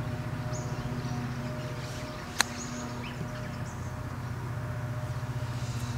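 A single sharp click of an iron's clubface striking a golf ball on a chip shot, about two and a half seconds in, over a steady low mechanical hum.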